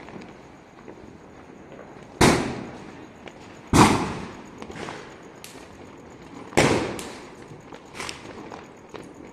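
Diwali firecrackers going off: three loud, sharp bangs, each dying away in a short echoing tail, with smaller pops in between.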